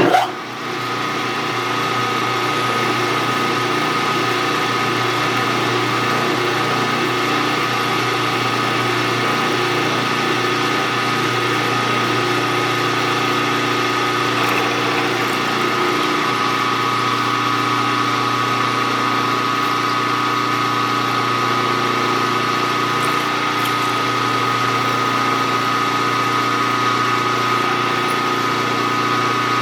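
Milling machine spindle starting up and running steadily with a steady whine, pilot-drilling a hole.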